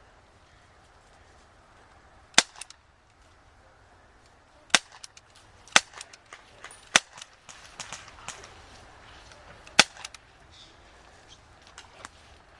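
Airsoft guns firing: a scatter of sharp snapping shots at irregular intervals, five of them loudest, with fainter clicks and pops between.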